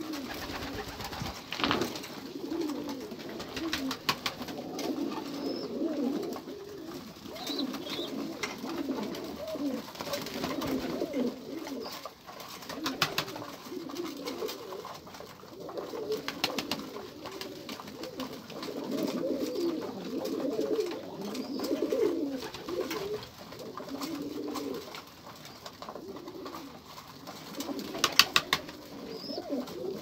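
A flock of domestic pigeons, Turkish başka breeds, cooing steadily with many overlapping low calls. A few times, short runs of sharp taps cut in, loudest near the end.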